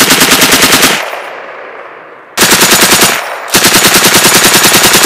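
M240B 7.62 mm belt-fed machine gun firing three bursts of rapid automatic fire: about a second of fire whose echo dies away, a short burst a little past two seconds in, and a longer burst from about three and a half seconds in.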